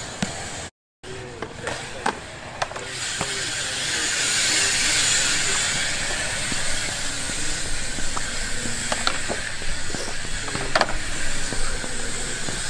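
BMX tyres rolling over smooth skatepark concrete: a steady hiss that grows louder about four seconds in, with scattered sharp clicks and knocks from the bikes. It cuts briefly to silence about a second in.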